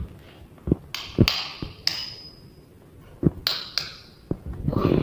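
A string of sharp taps and clicks, one of them leaving a short high ringing ping about two seconds in.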